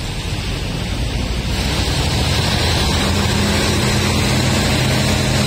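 Passenger train carriage pulling out of a station and gathering speed: a rushing rumble that grows louder, joined about halfway through by a steady low hum.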